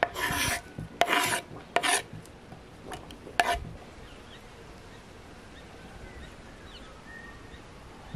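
Chopped fresh herbs and cranberries being scraped and moved, four short rasping strokes within the first few seconds. After that only a faint steady background.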